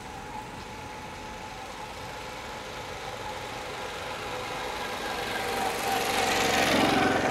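A small-engined vehicle approaches, its engine growing steadily louder and loudest near the end as it goes past.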